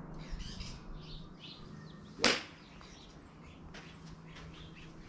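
A single sharp crack of a golf club striking a ball off a hitting mat, about two seconds in. Birds chirp throughout.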